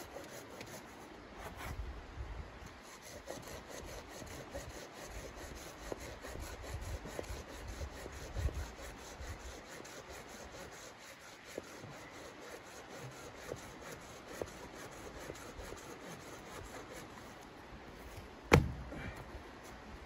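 Folding hand saw cutting through a thin wooden log in steady back-and-forth rasping strokes. One sharp knock sounds near the end.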